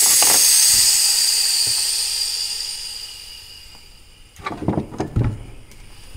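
Air hissing out of a Yamaha Zuma scooter's tubeless tire through the open valve after the valve stem has been pulled, fading away over about four seconds as the tire goes flat. Then a few dull knocks as the tire is pressed and handled.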